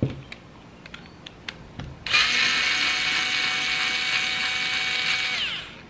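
A few light clicks, then a small cordless screwdriver drill runs steadily for about three and a half seconds, backing a screw out of a fishing reel's side plate, its whine dropping in pitch as it stops near the end.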